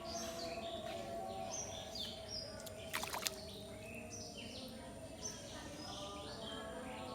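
A bird chirping repeatedly in short, stepped high calls over a steady low hum, with a brief crackle about three seconds in.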